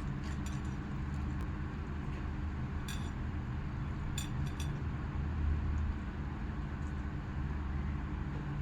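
Eating utensils clinking against a plate or glass a few times during a meal, over a steady low hum.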